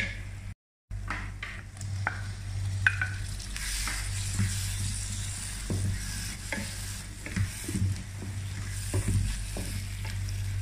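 Wooden spatula stirring and scraping through an onion masala in a non-stick pan as chopped tomatoes are mixed in, with the masala sizzling in oil throughout. Irregular scrapes and taps sound over the frying, above a steady low hum, and the sound drops out briefly about half a second in.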